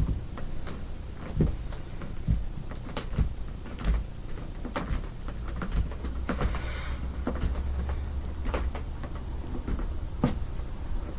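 Irregular clicks, knocks and bumps, roughly one every half second to second, over a low rumble: handling noise with no motor running.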